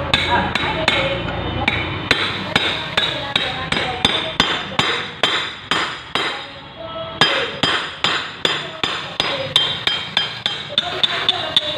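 Repeated hammer blows on metal, about three a second, each with a brief ring, and a short pause about halfway through.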